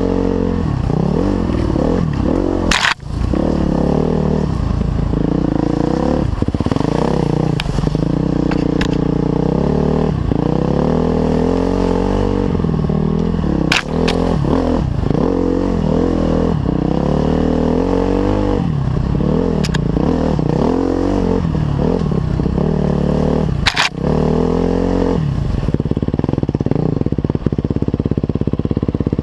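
Dirt bike engine under way on a sandy trail, its pitch rising and falling constantly as the throttle is worked, then settling to a steadier note near the end. Three brief sharp clicks cut through, about ten seconds apart.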